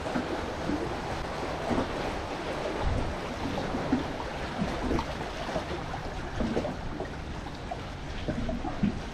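Saltwater waves lapping and splashing in irregular small slaps, over steady wind noise on the microphone.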